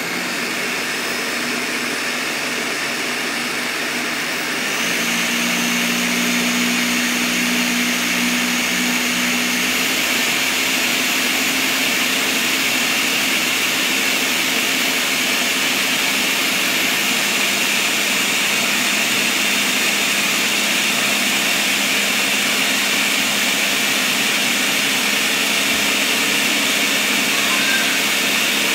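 Ninja CT661V countertop blender running its ice cream program, blending ice cream and milk. The motor steps up to a louder, higher speed about four and a half seconds in, then runs steadily.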